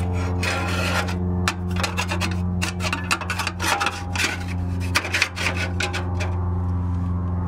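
Metal shims being worked by hand into the gap between a bumper wing and the truck body: scraping and rubbing of metal on metal with small clicks, busiest for the first five seconds and then thinning out.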